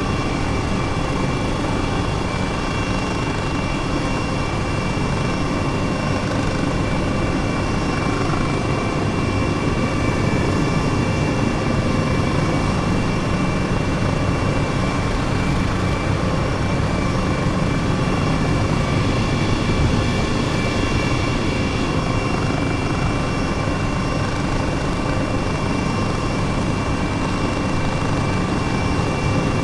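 Airbus helicopter running steadily: rotor and turbine noise with a steady high-pitched whine over it.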